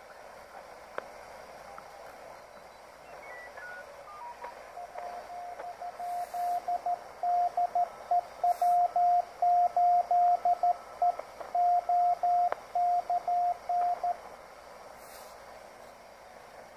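A 40-meter direct-conversion receiver's audio hiss, with a Morse code (CW) signal being tuned in: its beat note steps down in pitch from high to a steady middle tone a few seconds in. About nine seconds of Morse code at that tone follow, then only the hiss.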